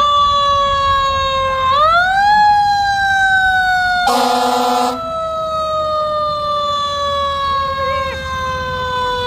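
Fire engine siren climbing in pitch twice near the start, then slowly falling in pitch as it winds down. About four seconds in, a horn blasts once for about a second over it.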